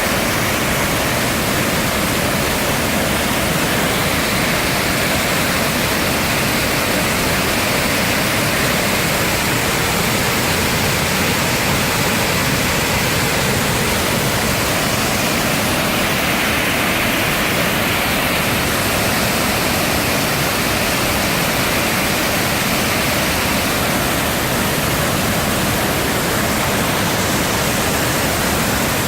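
Waterfall rumbling steadily: the dense, even rush of falling water, unbroken throughout.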